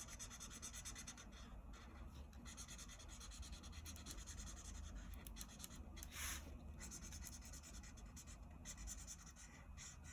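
Felt-tip marker scratching back and forth on paper in quick, fine strokes, colouring in a drawing. Faint, with one louder scrape about six seconds in.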